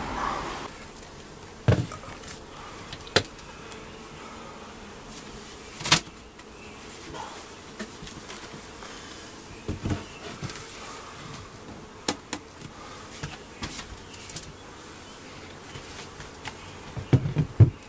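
Honeybees buzzing steadily around an open hive, broken by scattered sharp knocks and clunks as the wooden hive cover and an upturned plastic bucket feeder are handled and set in place, with a cluster of knocks near the end.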